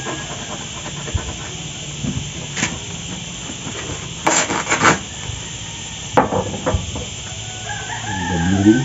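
Woven plastic sack rustling and scraping in short bursts as its mouth is stitched shut with twine, the cord pulled through the weave. The strongest bursts come about halfway through and again a little later, over a steady hiss.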